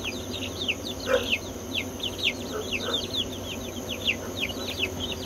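A brood of young chicks peeping nonstop, many short high peeps that each fall in pitch, several a second and overlapping, with a few lower calls mixed in.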